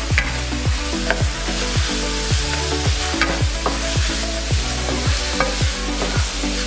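Minced pork sizzling in a nonstick frying pan while a wooden spatula stirs and scrapes it, mixing in the soy sauces, with a few sharp knocks of the spatula against the pan. Background music with a steady beat, about two thumps a second, plays over it.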